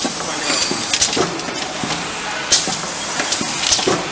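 Rotary aluminium Nespresso capsule filling and sealing machine running: pneumatic cylinders cycle with a short hiss of air about every second and a quarter, over a steady machine noise.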